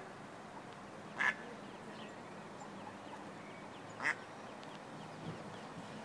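Mallard hen quacking twice, two short calls about three seconds apart: one a little over a second in, the other near four seconds.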